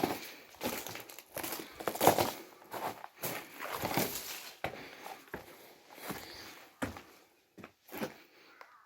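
Footsteps on rocky ground: irregular steps and scuffs, thinning out near the end.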